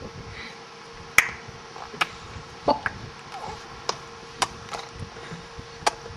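Sharp tongue clicks from a person's mouth, a repeated "chok", about eight of them at uneven intervals.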